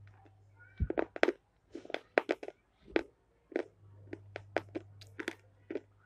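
Close-miked eating: a string of crisp crunches and chewing clicks, a few a second and irregular, as food is bitten and chewed.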